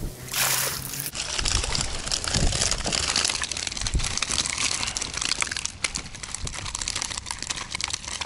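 A wet fishing keepnet full of crucian carp hauled up out of the water and laid on wooden boards: a rush of water pouring off the mesh in the first second, then a dense crackle of dripping, rustling mesh and small knocks.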